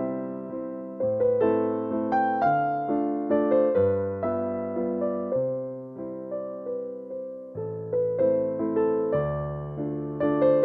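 Background piano music: a slow melody of struck notes, each ringing and fading, over changing bass notes.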